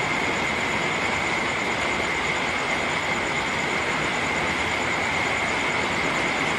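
Steady rain falling, an even, unbroken hiss, with a steady high-pitched tone running through it.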